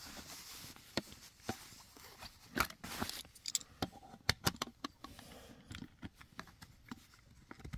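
Small plastic parts and packaging being handled by hand: a scatter of sharp clicks and light scrapes, thickest a few seconds in, as the mounting adapter and bracket pieces are fitted and set down.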